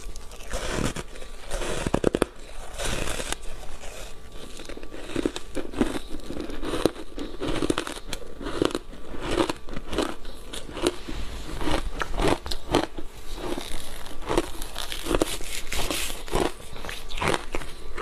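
Haoqi foam block ice coated in matcha powder being bitten and chewed: many crisp crackling crunches in quick succession, close to a clip-on microphone.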